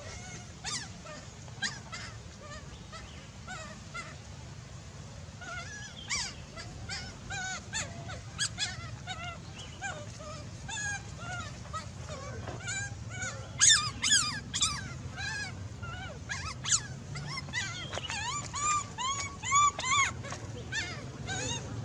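Baby monkeys crying with many short, high squeals and whimpers that each rise and fall in pitch. The cries come thicker and louder from about halfway through, with the sharpest ones soon after.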